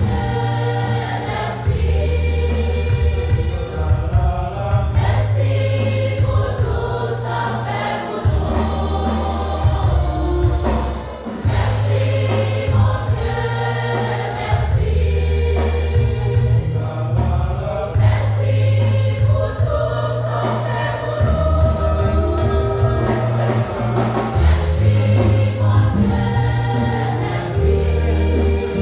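A church choir singing a gospel song, with a deep bass line changing note every second or two and a steady percussion beat underneath.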